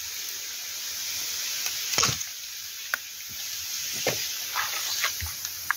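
A few irregular chopping knocks of a blade cutting into bamboo shoots at the foot of a bamboo clump, the loudest about two seconds in, over a steady hiss.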